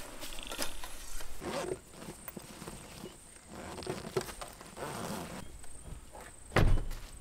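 Footsteps on grass and rustling, clicking handling noises as a roof-rack awning cover is fastened, with one loud thump near the end.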